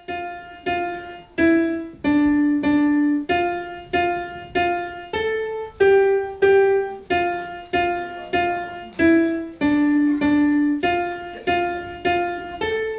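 Piano or keyboard playing a simple melody one note at a time, at an even, unhurried pace within a narrow middle range, each note decaying before the next.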